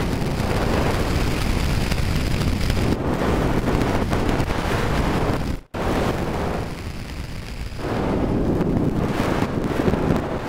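Loud, dense rushing rumble with no pitch, cutting out abruptly for an instant a little past halfway, then thinning briefly before it swells again.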